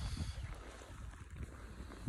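Faint wind buffeting the microphone: a low rumble with a soft flutter.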